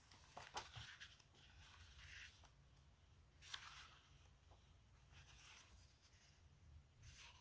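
Faint rustle of paper pages being turned in a book: several short swishes, the clearest about three and a half seconds in.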